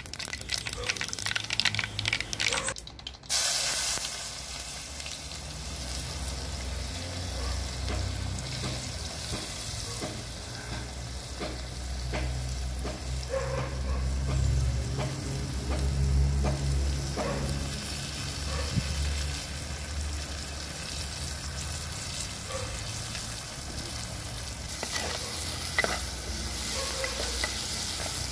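Sliced onions, green chillies and pandan leaves sizzling in hot oil in a clay pot, stirred with a coconut-shell ladle. The sizzle breaks off briefly about three seconds in, then runs on steadily with small clicks of the ladle against the pot.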